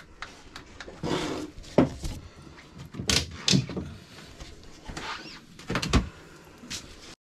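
A run of irregular knocks, thuds and scrapes from someone reaching into a boat's wooden access locker and handling things inside. The loudest knocks come about two seconds in, again around three seconds in, and near the end.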